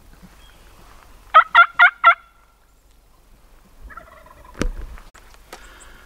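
A wild turkey gobbles: four quick, loud, wavering pulses about a second and a half in. A fainter wavering call follows a couple of seconds later, then a sharp click.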